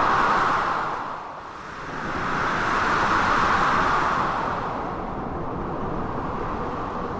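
Blizzard wind and sea waves crashing: a continuous roar of noise that swells loud at the start, eases about a second and a half in, surges again for a couple of seconds in the middle, then settles to a steadier rush.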